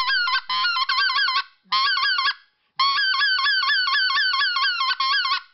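Goose call blown in three runs of quick honks, about four notes a second, each note breaking from a low tone up to a high one, with short pauses between the runs.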